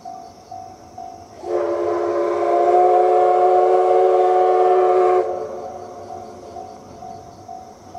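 Steam whistle of the C11 207 steam locomotive sounding one long blast of about four seconds, several steady tones together, starting about a second and a half in.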